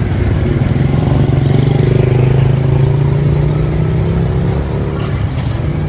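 A motor vehicle's engine humming as it passes on the road, growing louder to a peak about two seconds in, then fading away.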